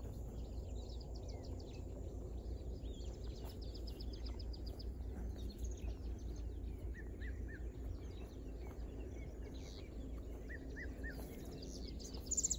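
Wild birds chirping and calling: quick runs of high notes, short whistled notes, and a louder burst of chirps near the end, over a steady low rumble.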